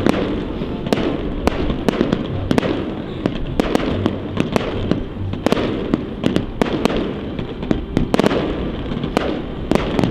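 Fireworks display going off in rapid succession: a continuous barrage of bangs and crackling, several reports a second with no pause.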